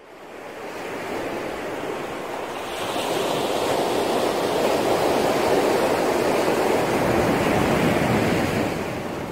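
Ocean surf washing onto a beach as a steady rushing sound that fades in, grows louder about three seconds in, and eases off near the end.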